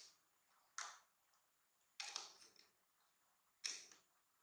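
Plastic baby bottles being handled: four short, sharp plastic clicks and rattles, each dying away quickly.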